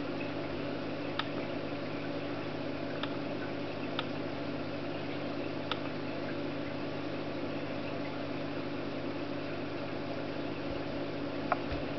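Steady mechanical hum with several short, sharp clicks spaced through it, the loudest near the end: a netbook's touchpad buttons being clicked to open menus and a file manager.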